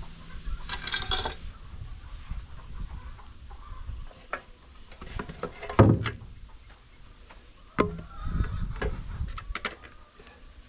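Scattered knocks and clanks of hand tools on a log splitter's steel cylinder parts, with one sharper, louder knock about six seconds in.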